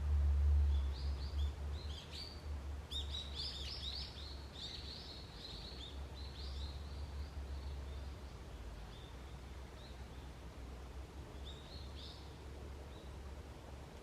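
Wild birds chirping: a flurry of short, high, quick calls, busiest a few seconds in and thinning out, with a brief burst again near the end. A low, steady rumble runs underneath, loudest at the start.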